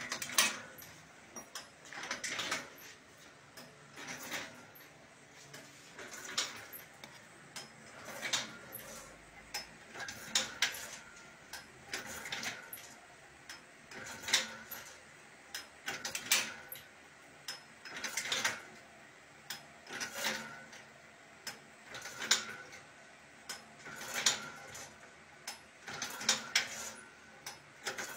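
Automated machine's metal mechanism cycling, a cluster of sharp clicks and clacks repeating about every two seconds.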